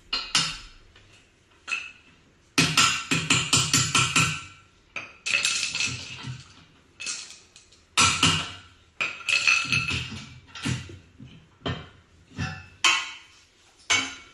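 Hammer tapping on metal in uneven runs of quick strikes, each ringing briefly, as a board is tapped out of the MB00 unit during a motor replacement.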